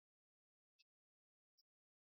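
Near silence: the sound track is essentially empty, with two very faint, brief clicks.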